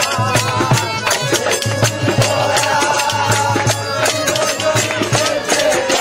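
Bengali devotional folk song between sung lines: fast, even hand percussion with a long held melody line over it.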